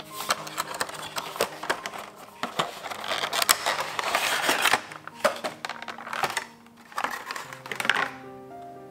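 Clear plastic blister tray from a Funko Pop box crinkling, crackling and clicking as it is handled and the vinyl figure is pulled out of it, with the busiest crackling about four seconds in.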